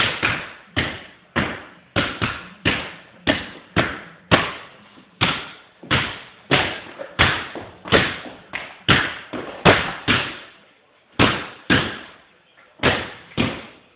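A basketball dribbled hard on a hardwood floor: an uneven run of bounces, about two a second, each ringing on briefly in the room, with a short break about ten seconds in.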